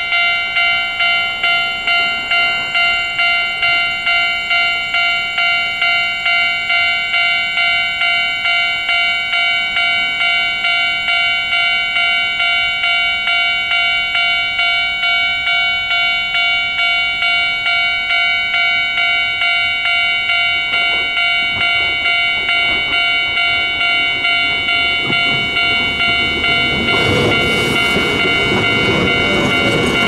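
Japanese level-crossing warning bell ringing in a steady beat of about two strikes a second, each strike a cluster of bright steady tones. From about 26 seconds in, the rumble of an approaching electric train builds under it, with a falling whine as the train reaches the crossing.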